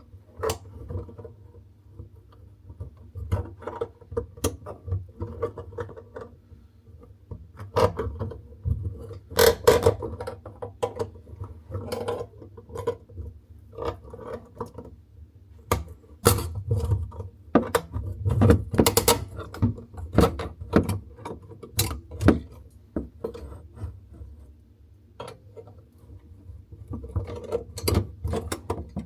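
Irregular clicks, knocks and clatter of metal tools and tap fittings being handled during work on a basin tap, with a steady low hum underneath.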